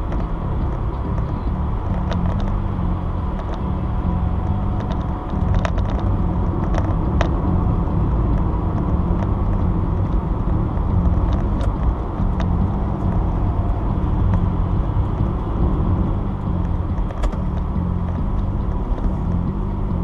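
Steady road and engine noise of a car driving at highway speed, heard from inside the cabin: a low rumble with a scattering of faint clicks.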